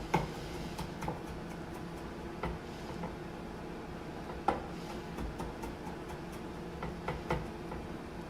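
Kitchen knife chopping on a cutting board: irregular sharp knocks, a few close together, the loudest about four and a half seconds in, over a steady low hum.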